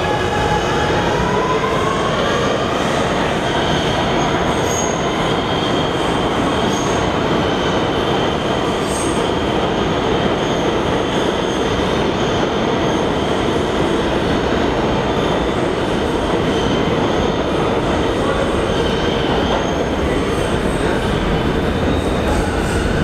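Kawasaki R211A subway train pulling out and running through the station: a motor whine rising in pitch at the start, then a steady loud rumble of wheels on rail with high squealing tones.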